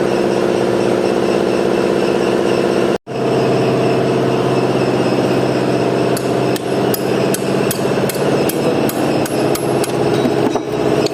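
Truck engine running steadily, cutting out abruptly for a moment about three seconds in. In the second half, sharp metallic taps come about twice a second, like hammer blows on metal.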